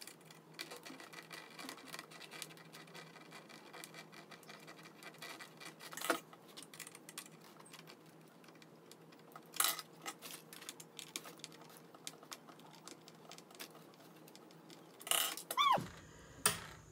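Screwdriver and fingers working small screws out of a plastic toy's cardboard packaging insert: faint scratching and ticking, with a few louder clicks.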